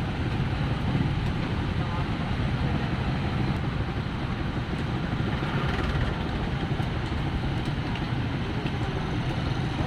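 Steady low rumble of an idling motorcycle engine, with street traffic around it.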